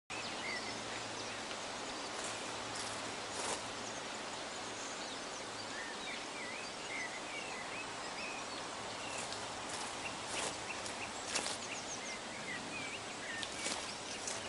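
Outdoor nature ambience: a steady background hiss with scattered bird chirps and a few sharp clicks.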